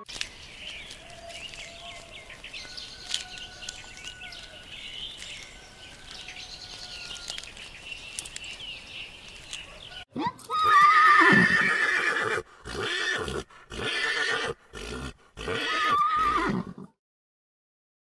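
A faint outdoor background for about ten seconds, then a horse whinnying loudly in several long neighs with short gaps between them, stopping abruptly about a second before the end.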